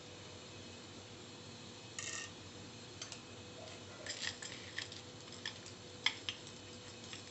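A spoonful of split dal dropped into hot oil in a pot, a short rattle about two seconds in, followed by scattered small crackles and pops as it starts to fry. A faint steady hum runs underneath.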